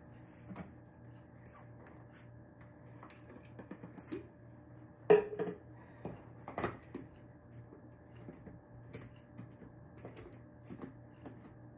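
Plastic personal-blender cup and blade base being handled and screwed together on a stone counter: scattered clicks and knocks, the loudest about five seconds in and another a second and a half later. A faint steady hum runs underneath.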